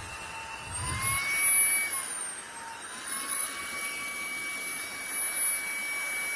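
Fanttik Slim V10 APEX cordless handheld vacuum running with a steady high-pitched motor whine. Its pitch rises about a second in, dips back briefly around two and a half seconds, then rises again and holds.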